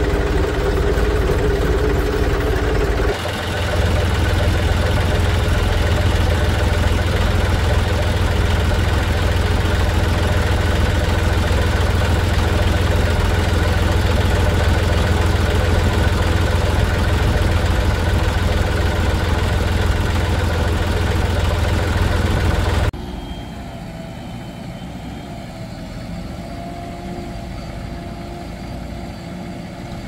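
Diesel engines of a backhoe loader and farm tractors running steadily. The sound changes abruptly about three seconds in to a stronger low engine note, then drops to a quieter, more distant engine sound about two-thirds of the way through.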